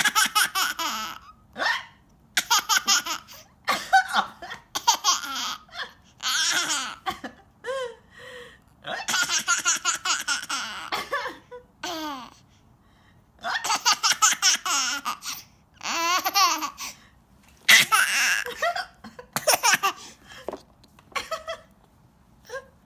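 A baby laughing in repeated bouts of rapid, pulsing belly laughs with short pauses between, set off by hiccups heard now and then in the pauses.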